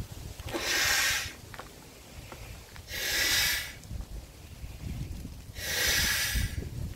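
A man blowing up a 35-inch latex balloon by mouth: three loud rushing breaths, about two and a half seconds apart.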